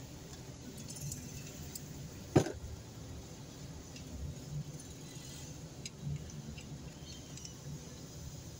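Low, steady rumble of a stationary car idling, heard from inside the cabin, with one sharp knock about two and a half seconds in.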